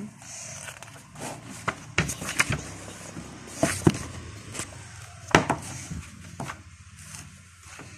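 An open book being handled close to the microphone, lifted up and set back down: scattered clicks, knocks and paper rustles, the loudest about four and five seconds in.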